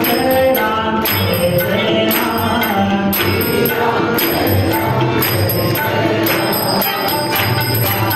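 Devotional kirtan music: a man singing a melody over harmonium, with tabla keeping a steady beat.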